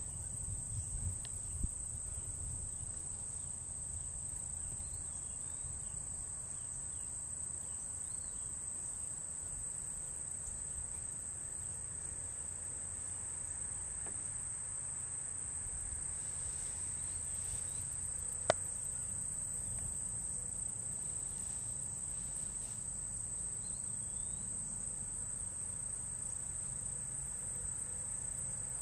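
Steady, high-pitched insect chorus droning without a break, over a low rumble. A single sharp click comes about two-thirds of the way through.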